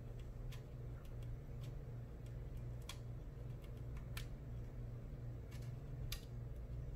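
Scattered faint clicks and ticks of small plastic and wood parts being handled and fitted by hand, over a steady low hum.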